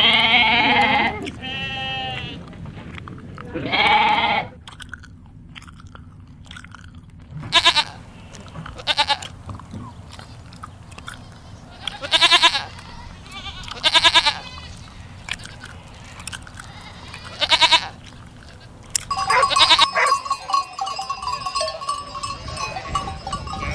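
Goats bleating: a loud bleat at the start and another about four seconds in, then short single bleats every couple of seconds. Near the end, a large flock of sheep bleating over one another.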